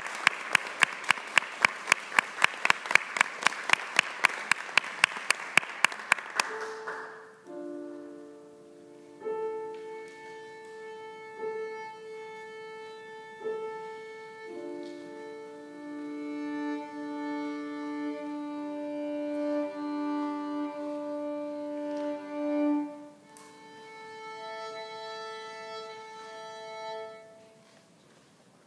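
Audience applause, with one close clapper at about four or five claps a second, dying away after about six seconds. Then a violin tuning against the piano: long bowed notes in fifths held over struck piano notes, with short breaks between.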